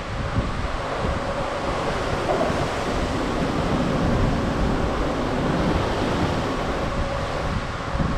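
Wind gusting on the microphone over the steady rush of sea swells along the side of a moving cruise ship, with a faint steady hum underneath.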